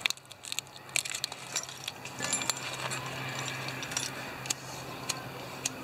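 Scattered small metallic clicks and clinks as a steel canteen cup is handled and set on a small metal camp stove.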